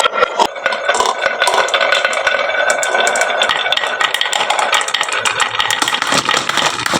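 Many marbles clattering and rolling down a wooden marble run, a dense, continuous rattle of quick clicks and clinks.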